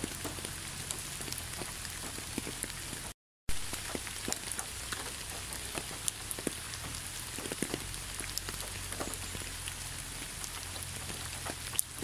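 Steady rain falling, a constant hiss with separate drops landing close by. About three seconds in, the sound cuts out to silence for a moment and comes back with a sharp click.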